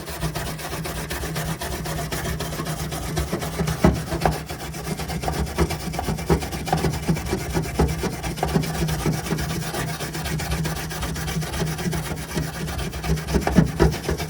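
Stainless steel wire brush scrubbing paint off the aluminum hull around a loose rivet, a continuous rapid scraping.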